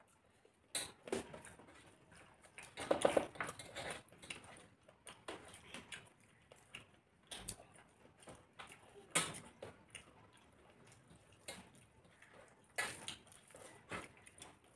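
Eating by hand from metal plates: fingers mixing rice against the plates, with scattered light clicks and rustles and mouth sounds of chewing. The loudest stretch comes about three seconds in.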